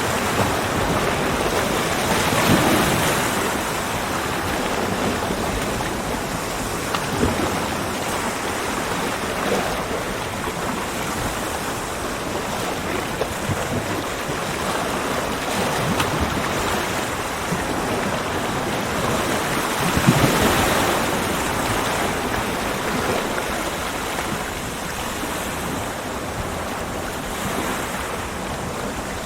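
Ocean surf breaking on a beach: a continuous wash of waves, with two louder breakers, one a couple of seconds in and one about two-thirds of the way through.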